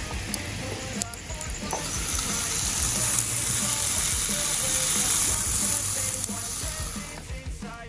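Food sizzling in a frying pan, with a steady hiss and small crackles, and faint background music.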